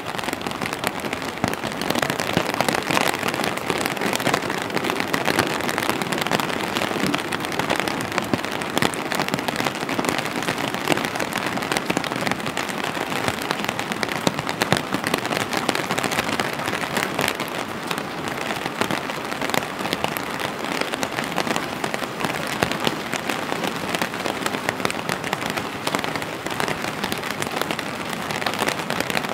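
Steady rain, a dense patter of drops falling on an umbrella held overhead and on wet pavement.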